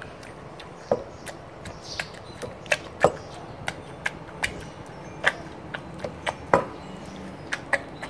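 Wooden pestle pounding boiled green Thai round eggplants in an earthenware mortar, a sharp knock with each stroke. The strokes come unevenly, a loud strike every second or two with lighter taps between, as the eggplants are mashed.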